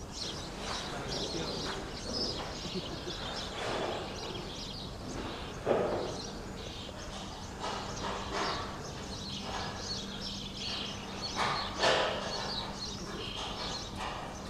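Outdoor ambience with birds chirping, under a steady low hum. Two louder short sounds come about six and twelve seconds in.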